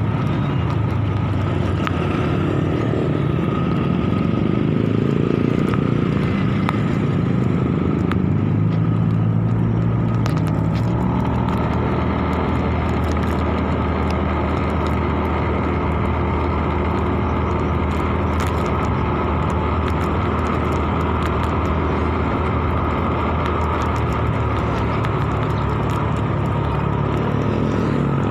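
Motorcycle engine running while riding, mixed with road and wind noise and passing traffic. The engine note shifts through the first several seconds and settles into a steady cruise about a third of the way in.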